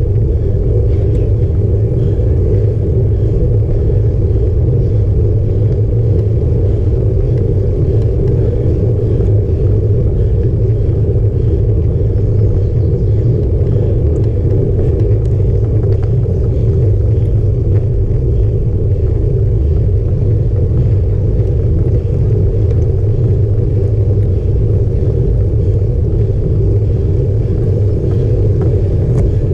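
Steady low rumble of road vibration and wind buffeting picked up by a camera mounted on a road bike's handlebars during a slow uphill climb.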